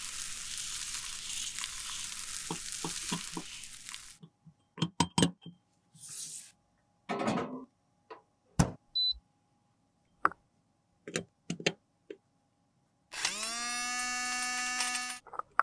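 A brush sweeps white powder through a fine mesh sieve with a steady scratchy hiss, followed by scattered clicks and taps and one short electronic beep. About 13 seconds in, a small electric grinder motor spins up and whirs steadily for about two seconds, then stops.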